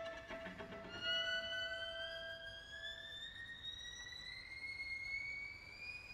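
String quartet playing contemporary music: after a few short notes, a high string note glides slowly and steadily upward over a held lower note, which stops about three seconds in.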